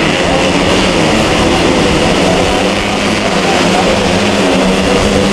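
Several racing motorcycle engines running and revving together on a dirt grasstrack, their pitches rising and falling as the bikes accelerate and pass.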